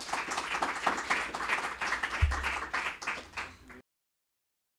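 Audience applauding, a dense patter of many hands clapping, with a low thump a little past two seconds in; the applause cuts off suddenly near the end.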